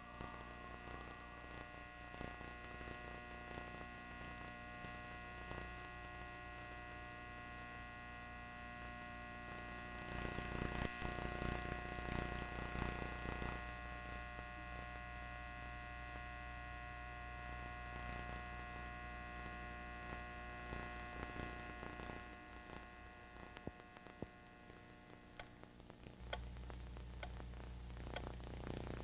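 Steady electrical mains hum with a buzz of many steady overtones, growing a little louder and hissier between about 10 and 13 seconds in. Near the end the higher tones fall away, leaving a low hum with a few faint clicks.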